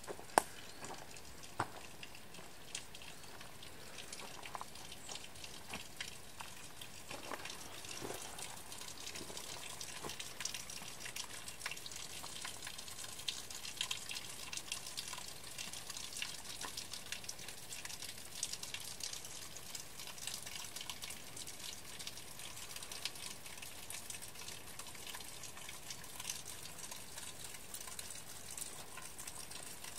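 Water dripping from a mossy rock overhang onto wet stones: an intermittent waterfall reduced to drips, making a dense, irregular patter of drops. A few sharper clicks come in the first two seconds.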